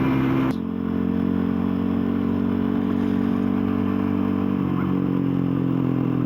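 The single-cylinder engine of a Lexmoto Adrenaline 125cc supermoto running on the road under a rushing hiss. About half a second in, the hiss drops suddenly and the engine note changes, and it shifts again near the end.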